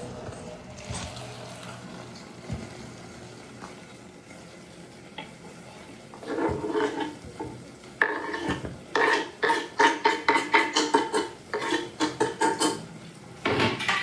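A utensil stirring vegetables in a cooking pan over faint sizzling, with a scrape about six seconds in and then a run of quick, repeated scraping strokes against the pan for several seconds.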